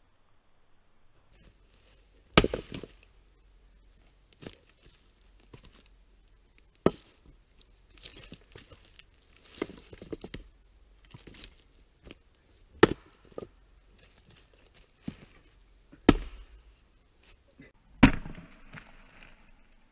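Double bit axe splitting firewood: five hard strikes, irregularly spaced several seconds apart, with softer knocks and the rustle and crackle of split wood being handled between them.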